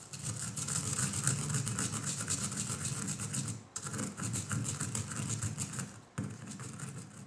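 Stone pestle crushing toasted cumin seeds in a stone mortar: a rapid, gritty run of grinding strokes, with two brief pauses.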